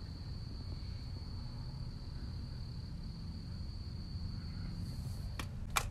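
An insect trilling steadily on one high pitch over a low rumble, with two sharp clicks near the end.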